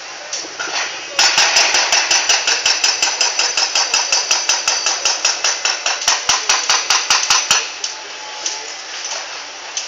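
Rapid, steady metallic hammering, about five strikes a second, over steady background noise. It starts about a second in and stops sharply some six seconds later.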